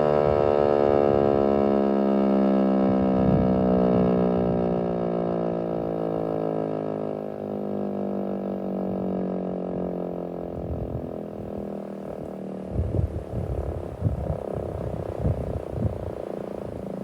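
Federal Signal Eclipse 8 tornado siren winding down at the end of its test, its many-toned wail sliding steadily lower in pitch and fading away. In the last few seconds, irregular low rumbling bumps take over.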